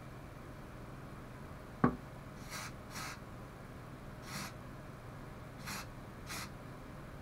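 Aerosol spray-paint can sprayed in five short hissing bursts, putting a coat of black paint on a bulb holder. Just before the spraying there is one sharp knock, the loudest sound.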